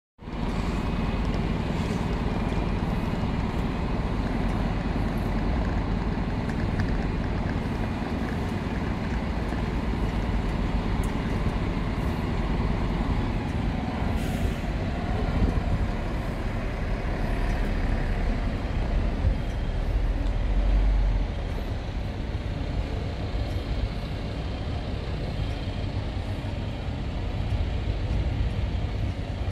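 A Venice Translohr rubber-tyred tram standing at a stop, running with a steady low rumble and hum; the level drops a little about two-thirds of the way through.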